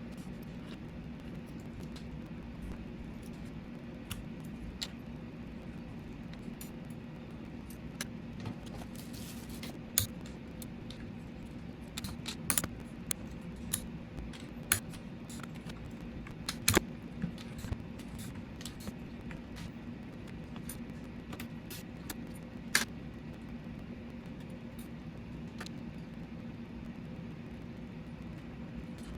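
Plastic PBT keycaps clicking and clattering as they are pulled off and pressed onto the switches of a mechanical keyboard: scattered light clicks, with a few sharper clacks in the middle, over a steady low hum.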